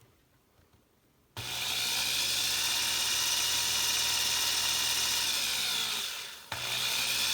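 Power drill with a 9/64-inch bit drilling out a Hot Wheels car's rivet. It starts about a second and a half in and runs steadily, winds down and stops at about six and a half seconds, then starts again straight away.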